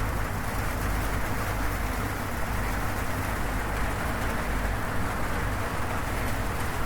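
Steady heavy rain drumming on a corrugated zinc roof, with a low rumble underneath.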